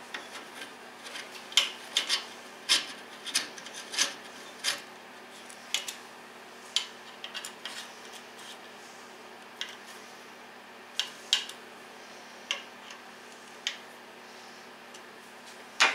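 Hex key turning button-head screws into an aluminium rail: irregular small metallic clicks and scrapes, close together in the first few seconds, then sparser.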